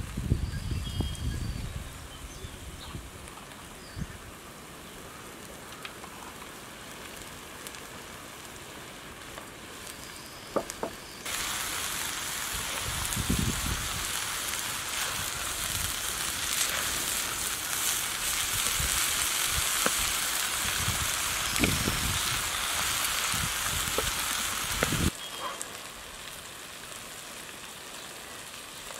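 Chopped vegetables (carrot, onion, mushroom and pepper) sizzling as they fry in a wide black wok over a wood fire, with a few scrapes and knocks of a wooden spatula stirring them. The sizzle comes up loud about eleven seconds in and drops back about twenty-five seconds in.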